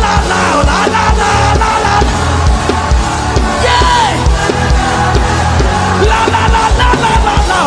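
Live gospel worship music: a band with a heavy, pulsing bass and drum beat under held and sliding sung notes, with voices of the congregation joining in.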